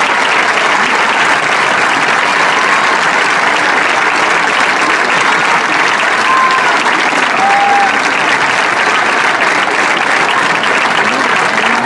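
A large crowd applauding, a steady dense clapping.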